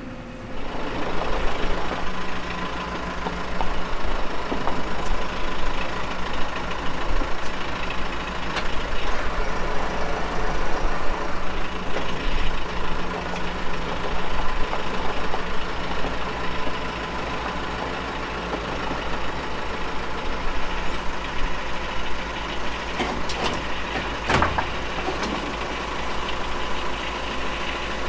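Compact tractor engine running at raised revs, with a single sharp clunk near the end.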